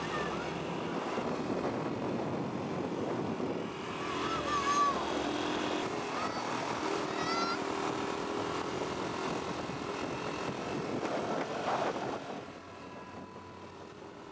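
Single-cylinder enduro motorcycle engine running at road speed, heard from on the bike itself; the sound drops off and gets quieter about twelve seconds in.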